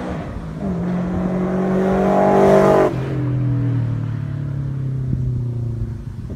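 Scion FR-S / Subaru BRZ / Toyota 86 flat-four engine through a Borla cat-back exhaust, the car driving by. The exhaust note grows louder, then drops suddenly in pitch about three seconds in and fades slowly.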